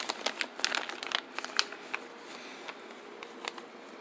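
Plastic packaging crinkling and rustling as parts are handled, with dense crackles in the first two seconds that thin out to scattered ones.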